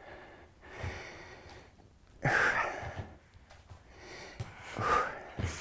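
A person breathing hard from exertion: three heavy, noisy breaths, the loudest about two seconds in.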